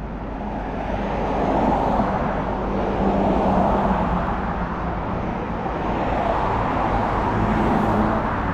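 Road traffic on a busy multi-lane street: cars driving past with a steady rush of tyre and engine noise that grows louder about a second in and swells again near the end as vehicles go by.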